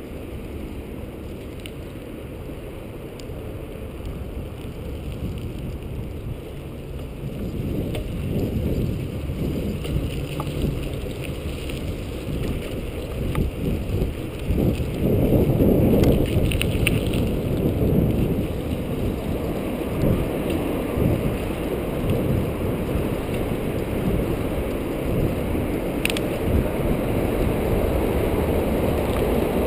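Wind buffeting the microphone on a moving bicycle, mixed with the rumble of the tyres on the paved trail. The rumble grows louder about a quarter of the way in and is loudest around the middle.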